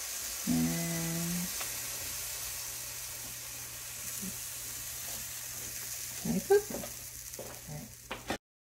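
Flourless protein pancake batter sizzling in a hot frying pan as it is scraped in from a bowl with a silicone spatula. A few knocks of the bowl and spatula come near the end, and the sound cuts off abruptly just before the end.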